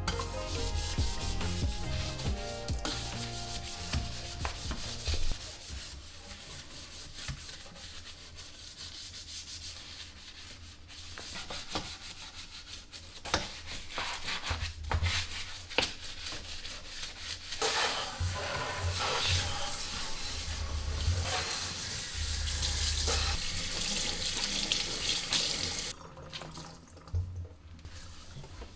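Cleaning sounds: rubbing and scrubbing with small knocks and clatter, then a louder steady hiss from about 18 seconds to 26 seconds, like water running from a tap.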